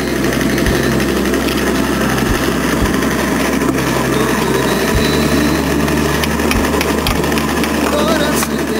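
Clay brick making machine running: a steady, loud mechanical hum and rumble from its drive and extruder, with a few short knocks. The hum changes abruptly about five seconds in.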